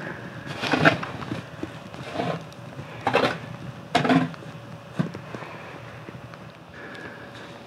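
A shovel scooping rice husks and throwing them over a buried clay pot: a scrape and a rush of falling husks about once a second, five times in the first five seconds, then only faint background noise.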